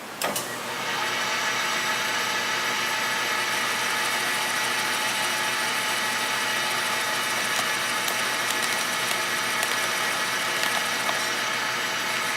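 1940s South Bend lathe running, its motor and gear train giving a steady mechanical whir with several fixed tones. It starts suddenly with a couple of clicks and settles to an even level within about a second.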